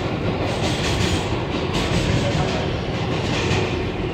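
R142A subway car running through the tunnel, heard from inside the car: a steady rumble of the wheels on the rails with irregular clicks and rattles over the track.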